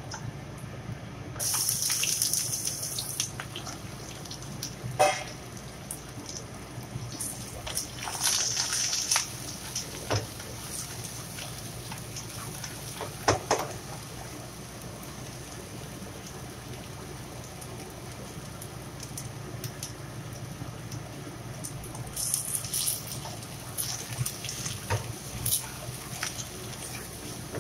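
Ginger and then sponge gourd (luffa) slices sizzling as they are stir-fried in oil in a nonstick frying pan. The hissing comes in bursts, and a wooden spatula knocks against the pan a few times. A steady low hum runs underneath.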